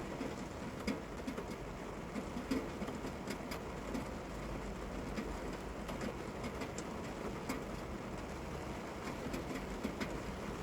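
Steady rain, an even hiss with scattered, irregular ticks of drops hitting a surface.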